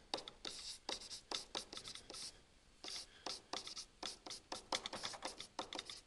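Stylus writing on a tablet: faint, quick scratches and taps of the pen tip as a short phrase is handwritten, with a brief pause a little over two seconds in.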